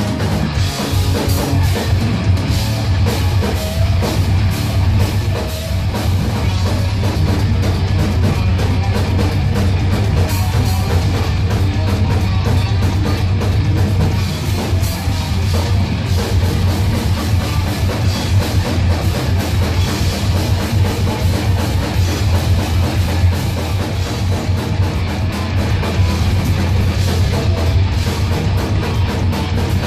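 Thrash metal band playing live: distorted electric guitars, bass guitar and a drum kit, loud and continuous with fast, dense drumming.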